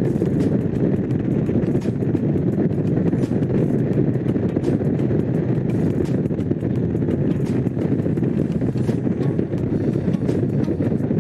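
Honda CX500 liquid-cooled V-twin engine running at a steady cruise while the motorcycle is ridden, with wind buffeting the microphone.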